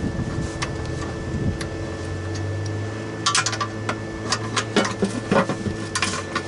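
Socket ratchet on a long extension clicking in short quick runs and single clicks as it undoes the last oil pan bolt, with a low steady hum in the background for a couple of seconds near the middle.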